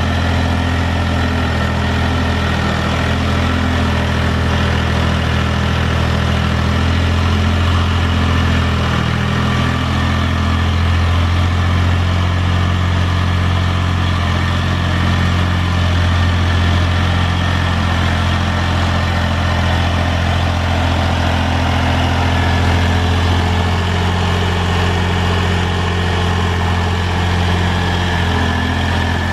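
Mahindra 3525 tractor's three-cylinder diesel engine running at a steady speed while it drags a box blade through loose dirt.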